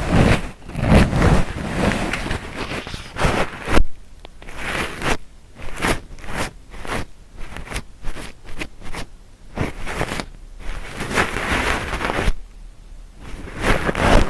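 Ear-cleaning tools scraping and rubbing in the ear of a binaural ASMR microphone: irregular scratchy strokes, some in quick runs, with a brief pause near the end.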